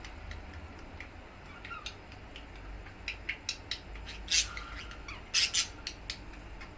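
Budgerigars chirping, with short high chirps and a few louder squawks in the second half.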